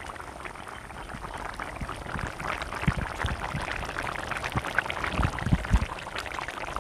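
Thick fish curry bubbling at a full boil in an earthenware pot, a dense crackle of small bursting bubbles with a few louder pops in the second half. The curry is nearly done.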